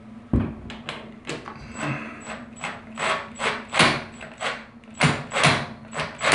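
Cordless drill driving a screw through the curved shower rod's wall mounting flange, in a quick series of short bursts, about two or three a second.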